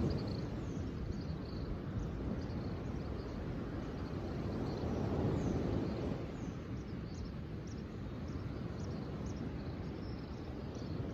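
Outdoor nature ambience: a low rushing that swells about five seconds in and then eases, with small birds chirping in short, quick high notes throughout, thickest in the second half.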